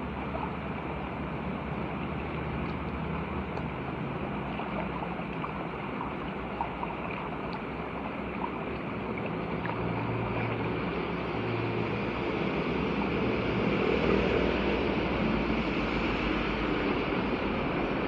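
Muddy floodwater rushing and gurgling into a clogged roadside culvert drain while hands work in it, growing louder in the second half as the flow into the drain picks up.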